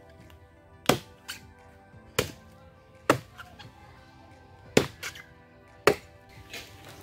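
Machete blows chopping into the base of a young green bamboo culm: five sharp strikes at uneven intervals, some followed by a lighter knock, over steady background music.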